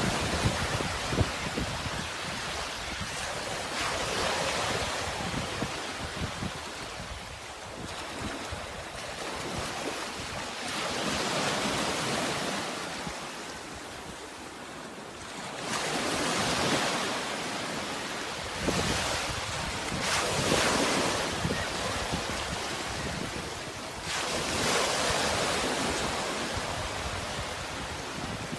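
Sea waves washing ashore, one swelling wash every four to five seconds, over a low wind rumble.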